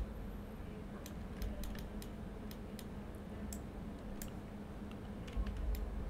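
Irregular, scattered clicks of a computer keyboard and mouse being worked, over a steady low hum.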